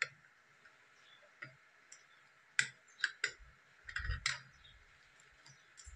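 Scattered short, sharp plastic clicks and knocks from a Hohem iSteady X folding smartphone gimbal being handled and adjusted, busiest in the middle, with a duller thump about four seconds in.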